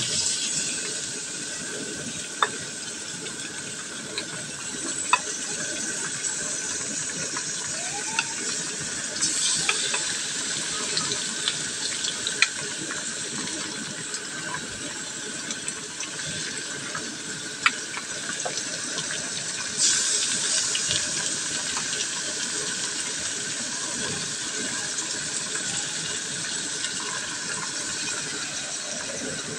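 Pork belly chunks sizzling in hot oil in a wok with onion and garlic, the sizzle starting suddenly as the meat goes in. It surges louder about nine seconds in and again about twenty seconds in, with scattered sharp pops.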